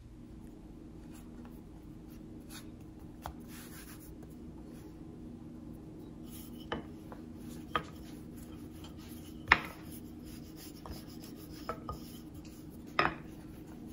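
Wooden rolling pin rolling out a piece of dough on a floured bamboo cutting board: a soft rubbing, with a few sharp knocks of the pin on the board, the loudest about nine and a half seconds in. A steady low hum runs underneath.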